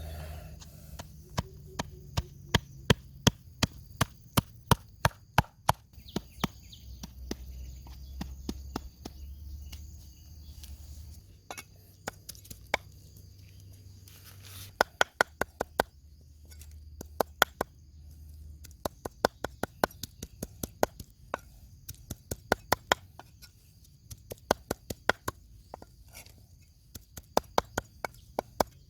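Knife chopping on a wooden cutting board in quick runs of sharp strokes, about three a second, with short pauses between runs.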